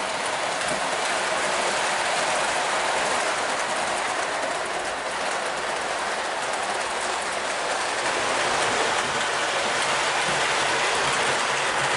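O gauge model freight train rolling on its track: a steady rattle and rumble of the boxcars' metal wheels on the rails.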